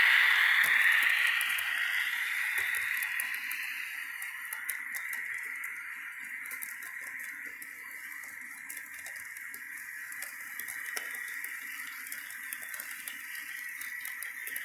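HO scale model freight train rolling past on its track: a steady hiss of metal wheels on rail, loudest at first and fading over the first few seconds as the locomotive moves away, then holding steady as the cars pass. Light clicks are scattered through it.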